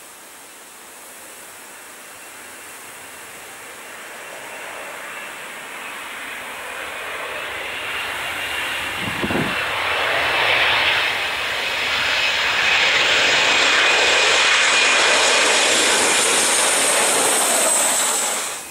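Boeing 737 jet engines on final approach, growing steadily louder as the airliner closes in and passes near, with a steady high fan whine over the rush and a higher whine that drops slightly in pitch as it goes by. A brief low thump comes about nine seconds in, and the sound cuts off suddenly near the end.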